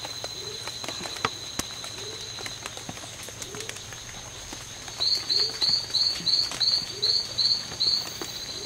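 Tropical forest animal chorus: steady high insect tones, a low rising call repeating about every second and a half, and about halfway through a run of about ten loud rising chirps, about three a second, from a calling frog or bird.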